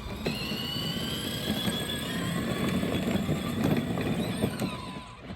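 A small vehicle driving along: a steady motor whine that rises slightly in pitch over the rumble of its wheels, easing off near the end.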